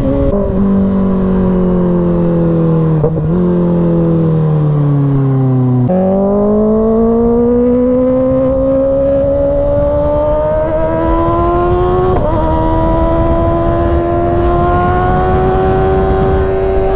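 2024 Kawasaki ZX-6R's 636 cc inline-four engine under way. Its pitch falls for about six seconds as the bike slows off the throttle, then jumps up sharply about six seconds in and climbs steadily as it accelerates again.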